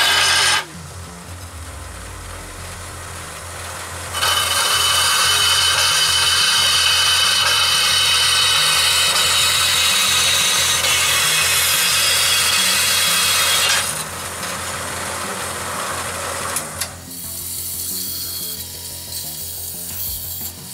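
Small vertical band saw running with a steady motor hum while its blade cuts through a cast-iron griddle plate. A loud rasping cut runs from about four seconds in to about fourteen seconds, after a short cut at the very start, and the saw runs more quietly with only light cutting near the end.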